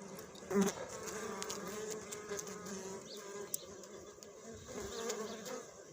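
A flying insect buzzing: a steady, wavering hum that swells briefly about half a second in.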